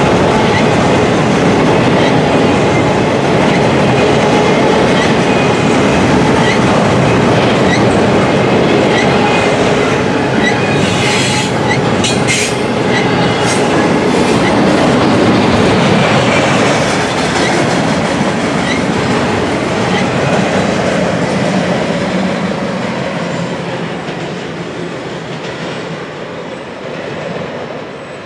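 Container cars of an intermodal freight train rolling past, the wheels clattering rhythmically over the rail joints, with a few brief sharp metallic squeals about halfway through. The sound grows fainter over the last ten seconds.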